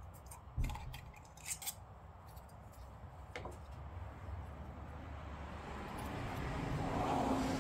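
Small metal clinks and taps from handling the parts of a cut-open SuperTech oil filter: the empty steel canister and its bypass valve assembly. Near the end a rush of noise swells up and becomes the loudest sound.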